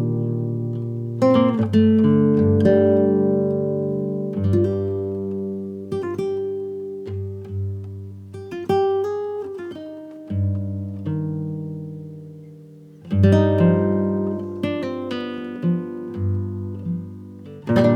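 Background music on acoustic guitar: slow plucked and strummed chords, each struck and left to ring out.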